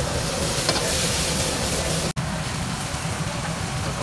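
Commercial gas wok burner burning with a steady low roar under a hot wok, with a hiss of sauce and vegetables sizzling. The sound cuts out for an instant about two seconds in.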